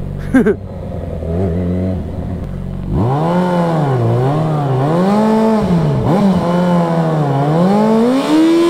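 Yamaha XJ6 600 cc inline-four motorcycle engine running low for about three seconds, then revved up and down repeatedly, about once a second, and held high near the end.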